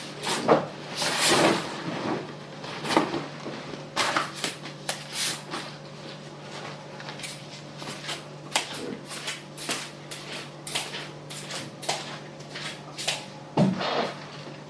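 Irregular knocks, clunks and short scrapes of household things being handled and put away while tidying a house, including what may be cupboard doors or drawers. The loudest clusters come near the start and near the end, over a faint steady low hum.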